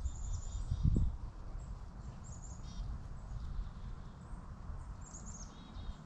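Small woodland songbirds calling three times, each a short run of high, quickly falling notes. Under them is a steady low rumble, with a brief louder rumble about a second in.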